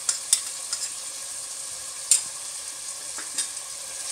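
Chicken pieces sizzling in hot oil in a pot, with yogurt and almond paste just added. A few sharp clicks and knocks cut through the steady sizzle, the loudest about two seconds in, and a spoon starts stirring near the end.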